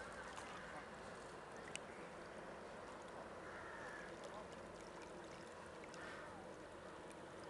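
Faint steady wash of lake water, with a single small click about two seconds in.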